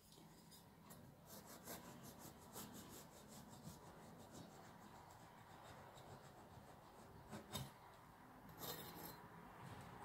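Knife sawing horizontally through a baked cake to slice off its domed top crust: faint, repeated rasping strokes.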